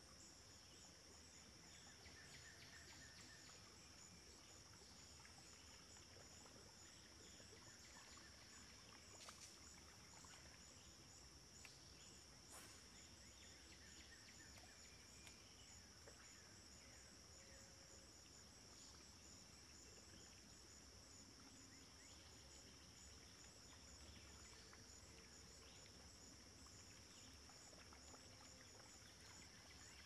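Faint ambience of a steady, high-pitched insect chorus with a fast, even pulse, broken by a few soft clicks.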